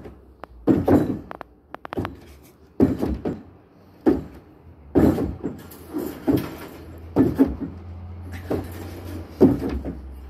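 Feet and hands thudding on wooden decking as a man jumps up and drops down into push-ups. There is a string of thumps roughly every second, some in quick pairs.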